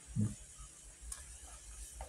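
Wooden chopsticks stirring boiling broth in an aluminium pot, ticking lightly against the metal a couple of times under a low steady rumble. A short voice sound comes just after the start.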